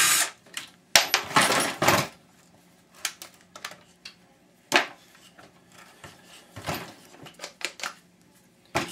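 Metal and plastic parts of a power washer clinking, knocking and rattling on a workbench as a piece is worked loose and pulled out. The loudest clatter comes about a second in, followed by scattered single knocks. A power tool cuts off right at the start.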